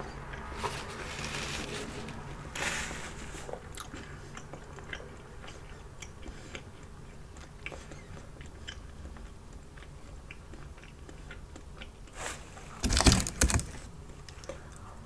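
Close-miked eating: biting and chewing fast food, with many small wet clicks and some crunching. A brief louder burst of sharp sounds comes near the end.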